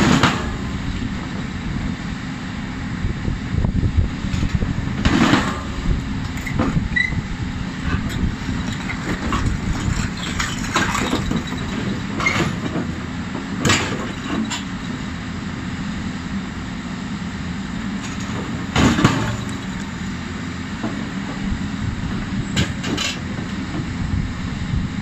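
A 33-tonne excavator's engine and hydraulics running steadily under load, with the Fractum 100 rock breaker landing separate sharp strikes on diabase boulders every few seconds, about seven or eight in all, the loudest about two-thirds of the way through.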